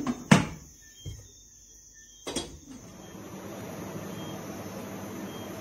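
A few sharp knocks and clunks from a ceramic dinner plate being handled and picked up. The loudest comes about a third of a second in and another about two seconds later. A steady low rustling noise follows from about three seconds in.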